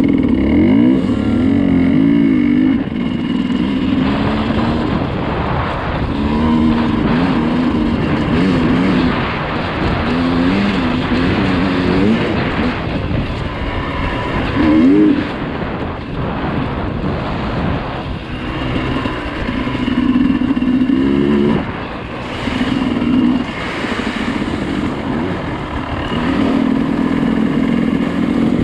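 Dirt bike engine under way off-road, its pitch rising and falling again and again as the throttle is worked, with short lulls between the pulls.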